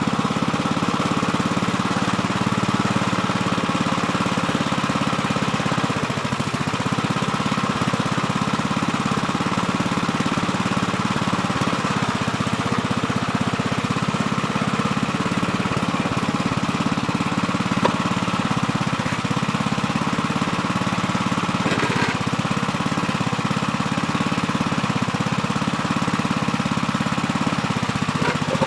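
Gravely Terramite compact backhoe's engine running steadily while digging, with a couple of brief knocks about three-quarters of the way through and near the end.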